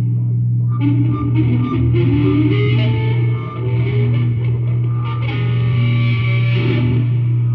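Psychedelic rock band playing live: effects-laden electric guitar lines stepping over a steady held low note, with drums and cymbals underneath.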